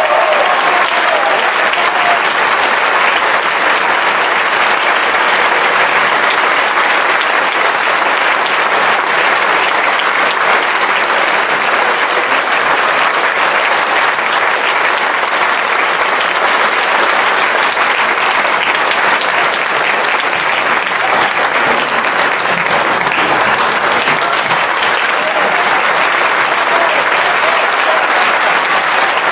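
Audience applause, a loud, steady ovation that keeps up without a break.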